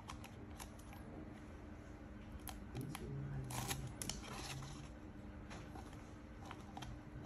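Faint rustling and scattered small clicks of paper and a clear plastic cup being handled, over a low steady hum.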